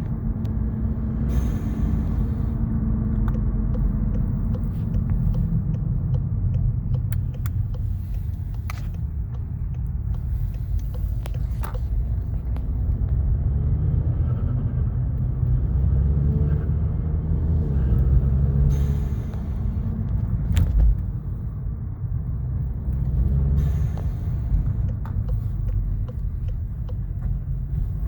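VW Golf R's turbocharged four-cylinder engine running while driving, its level rising and falling, with several short rushes of air and a few sharp cracks between throttle applications. The air rushes fit the turbo flutter on lift-off that the owner blames on his APR stage 2 tune, and the cracks fit the tune's exhaust pops and bangs.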